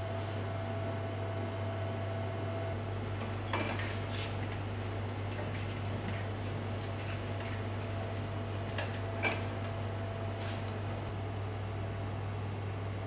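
Steady low hum with fan noise from a 3D printer and lab equipment running, broken by a few light clicks and knocks.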